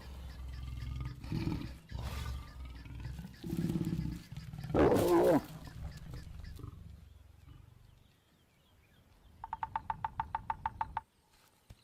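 Lions growling low during mating, with a loud, harsh snarl about five seconds in. Near the end comes a quick run of about a dozen short, sharp pulses.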